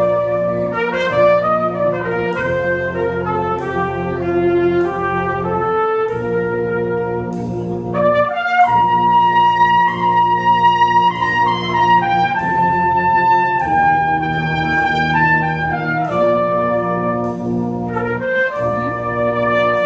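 Brass band playing a slow piece, with a solo trumpet carrying the melody in long held notes over sustained chords from the lower brass.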